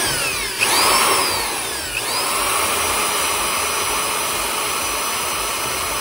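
Bosch PBH 160 R rotary hammer drill running unloaded in the air: its motor whine climbs and sags in the first two seconds as the trigger is worked, then climbs again about two seconds in and holds steady at full speed.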